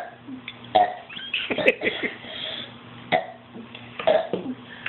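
A boy burping over and over, a string of short loud belches about a second apart, around five in all.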